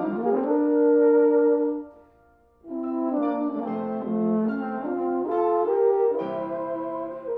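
Two euphoniums playing in harmony: a held two-note chord, a short break about two seconds in, then both players moving through notes together.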